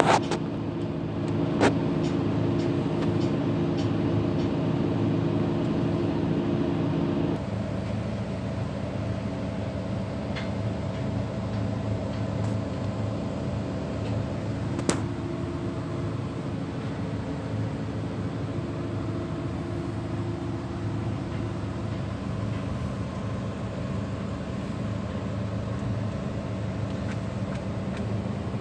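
Diesel engine of a Terex mobile crane running steadily while it holds the tower crane's counterweight jib on its hook. About seven seconds in, the engine note drops to a lower, quieter level. There are a couple of light clicks.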